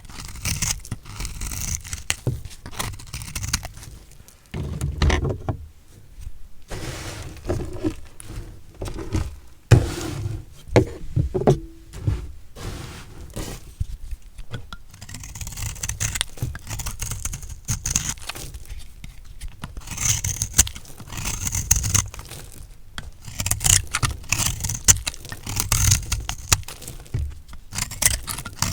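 A knife cutting through blocks of recycled soap: a run of irregular crunches, crackles and blade scrapes, with a few sharper, louder cuts among them.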